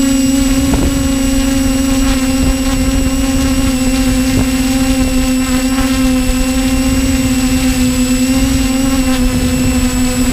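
TBS Discovery Pro quadcopter's brushless motors and propellers humming steadily in flight, with a low rumble underneath.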